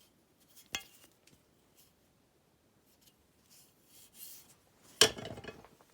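Old steel bike locks being handled: a sharp metal click under a second in, some faint rattling, then a loud metallic clank with a brief rattle near the end.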